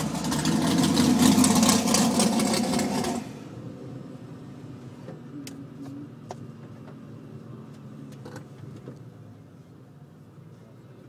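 Loud engine and rushing noise for about three seconds that cuts off sharply, then a car engine idling steadily with a few faint clicks.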